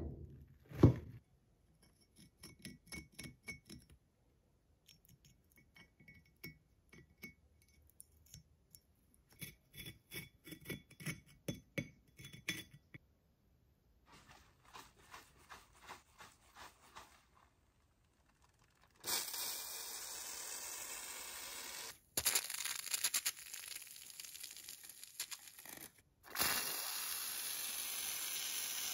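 A heavy rusted iron axe head is set down on a wooden table with a thud, then light clinks and scrapes as it is handled. From about two-thirds of the way in, an aerosol can sprays foam onto the rust in steady hisses, broken by a few seconds of sputtering crackle.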